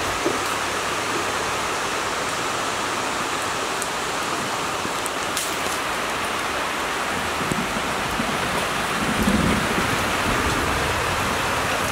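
Rain falling steadily: an even, unbroken hiss of rain on the surroundings.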